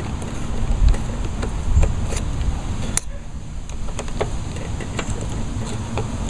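A socket on a long extension turning a 1/4-inch bolt on a lawnmower's belt guard: scattered, irregular metal clicks and taps, the sharpest about three seconds in, with two low thumps near the start, over a steady low rumble.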